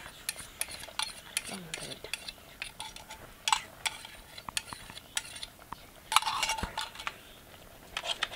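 Metal spoon stirring maize porridge, clinking and scraping against the metal pot and a small bowl in a string of sharp, irregular clicks, busiest a little after six seconds.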